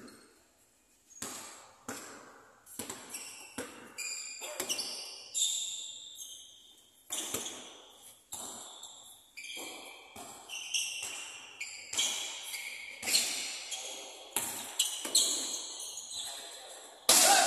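Basketball bouncing on a gym court during a game, a string of separate knocks that echo around the hall, mixed with short high squeaks of sneakers on the floor. A louder impact comes near the end.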